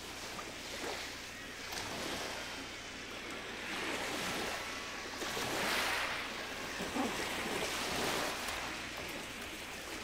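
Surf washing against a rocky, seaweed-covered shore, swelling to its loudest about six seconds in.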